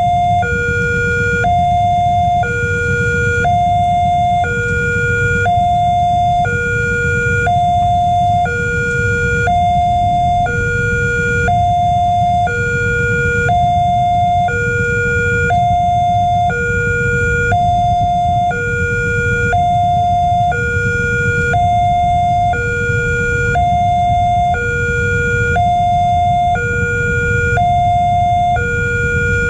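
Railway level-crossing warning alarm sounding, an electronic two-tone signal alternating evenly between a higher and a lower tone without a break, warning that a train is approaching and the crossing is closed. A low rumble runs underneath.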